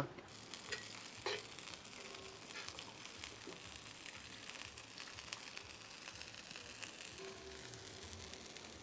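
Chopped dasheen leaves sizzling faintly in a hot iron pot, a soft hiss with fine crackles, and a light knock about a second in.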